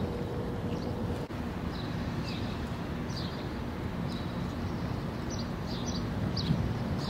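Outdoor background of steady low noise, with small birds chirping: short high chirps repeat every half second to a second from about two seconds in.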